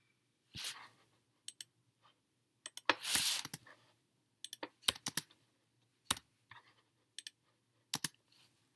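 Computer keyboard keystrokes and mouse clicks while editing code, irregular and scattered, some in quick pairs and short runs, with a short rushing noise about three seconds in.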